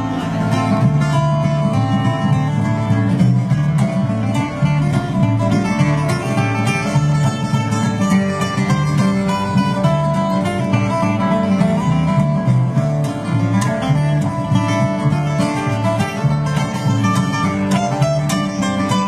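Acoustic string band playing an instrumental bluegrass-style tune: acoustic guitars over a plucked upright bass line.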